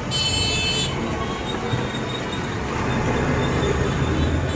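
Street traffic: a steady rumble of vehicle engines, with a brief high-pitched tone in the first second.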